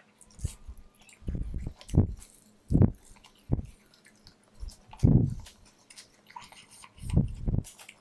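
A person biting into a sauced, fried chicken lollipop and chewing it, with wet chewing sounds coming in irregular spurts about once a second and short pauses between them.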